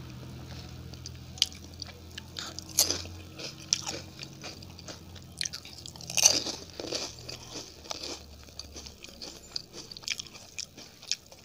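A person biting and chewing crisp fried food close to the microphone: irregular crunches and crackles, the loudest about six seconds in.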